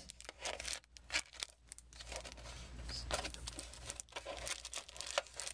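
Foil Yu-Gi-Oh! booster packs crinkling and rustling as they are handled and lifted out of a collector's tin, a dense run of small crackles.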